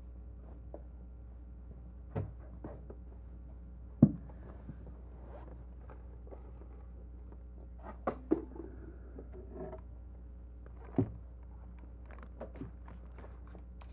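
A person moving about and settling onto a couch: scattered thumps, knocks and rustles, the loudest about four seconds in, over a steady low hum.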